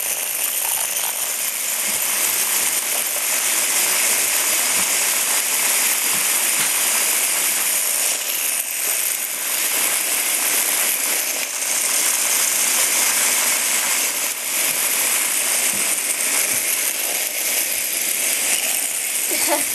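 Many Hexbug Bobble Bots, small vibration-motor toy robots, buzzing and rattling across a hard floor together: a dense, steady chattering clatter.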